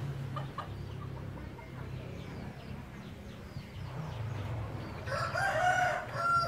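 A rooster crowing once, a pitched call of about a second and a half near the end.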